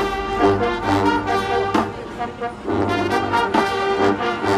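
Marching band playing: the brass section, trombones and trumpets, sounds loud held chords that change every half second or so, punctuated by sharp percussion hits.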